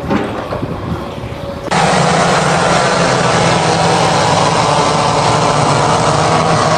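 A short stretch of mixed noise, then, cut in abruptly about two seconds in, a loud engine running steadily with an even low hum.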